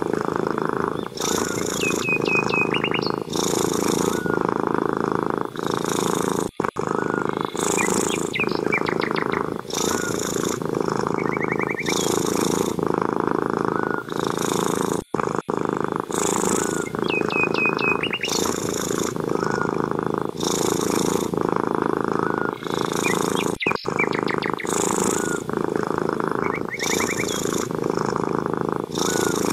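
Domestic cat purring loudly and steadily, each breath in and out heard as a rhythmic pulse. A few faint runs of short, high chirping notes come through now and then.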